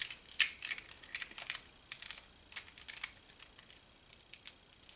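Plastic clicks and clacks of a floppy cube, a 3×3×1 twisty puzzle, being turned and handled in the hands: a string of irregular sharp clicks.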